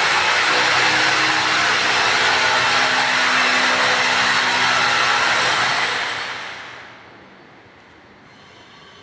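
A power tool running steadily, then dying away over a second or so about six seconds in.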